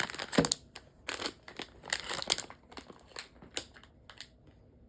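Crinkly blind-box packaging being handled and crumpled in the hands: an irregular run of sharp crackles that stops about four seconds in.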